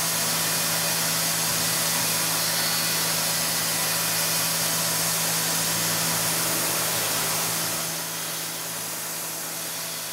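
Tormach 770 CNC mill milling metal with an end mill: a steady spindle hum under a constant hiss of cutting. The sound drops in level about eight seconds in.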